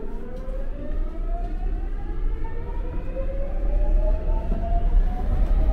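Seoul subway train's electric traction motors whining as the train pulls away and gathers speed: one steady rising tone, climbing evenly in pitch, over a low rumble of the car.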